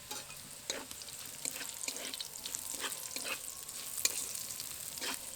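Chopped carrot and garlic sizzling in a little oil in a kadai, being stirred, with repeated sharp scrapes against the pan about twice a second.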